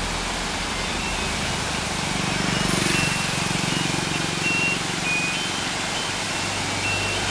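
Steady rushing noise of a waterfall, with a vehicle engine swelling as it passes about two to four seconds in, and a few short high chirps over the top.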